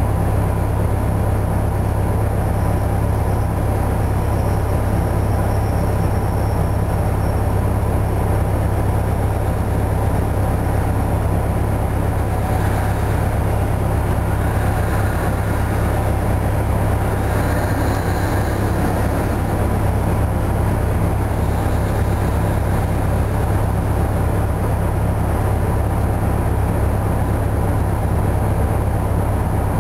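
Detroit Diesel 8V71 two-stroke V8 diesel in a 1972 Flxible New Look bus idling steadily, a deep, even hum heard from inside the bus.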